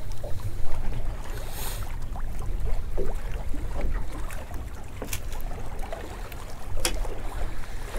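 Wind rumbling on the microphone and water against the hull of a small drifting boat, with a short hiss about a second and a half in and a few sharp clicks later on.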